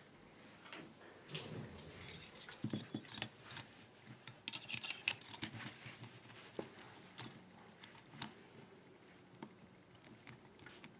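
Padlocks being handled: scattered faint metal clicks, clinks and knocks, a small cluster of them about halfway through.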